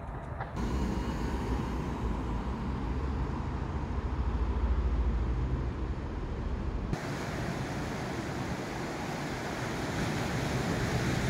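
Outdoor ambience of wind buffeting the microphone over a low rumble. About seven seconds in it changes to a steady hiss of surf breaking on rocks below.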